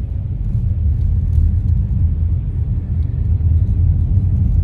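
Steady low road and engine rumble inside the cabin of a moving 2018 Dodge Challenger, growing a little louder about a second in.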